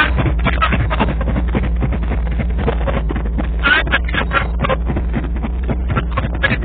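AC Cobra's 427 cubic-inch V8 running steadily on its first start-up.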